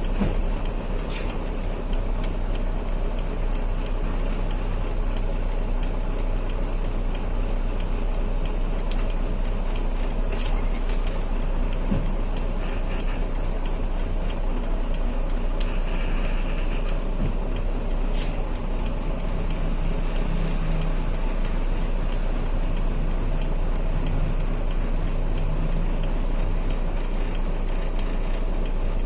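Truck engine running steadily with road noise as the truck drives under load, with a faint regular ticking and a few short clicks.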